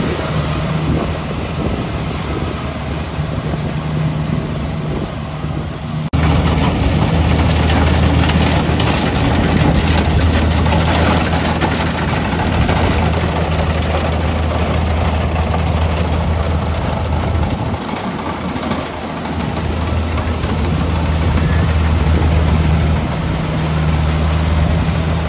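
Kubota combine harvester's diesel engine running steadily with a low hum and mechanical clatter. It turns suddenly louder about six seconds in and dips briefly near the eighteen-second mark.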